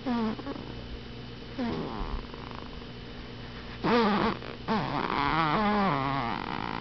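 A seven-week-old baby snoring in his sleep: short, pitched grunting breaths that drop in pitch, three times, then a longer wavering one near the end.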